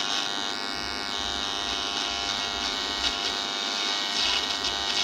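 GPX AM/FM portable radio on the medium-wave (AM) band, its speaker giving out steady buzzing static with no station coming through.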